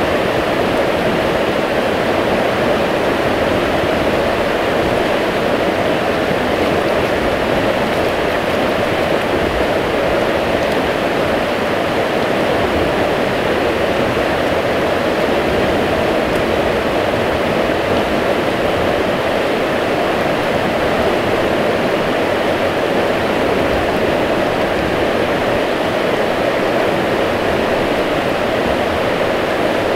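River rapids rushing: a steady, unbroken wash of water.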